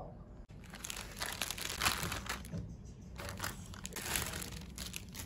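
Clear plastic bag holding a coiled cable crinkling as it is handled, in irregular bursts with short lulls.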